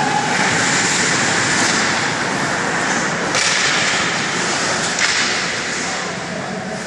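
Ice hockey game noise in a rink: a steady scraping hiss of skates on the ice, broken by two sharp knocks about three and five seconds in.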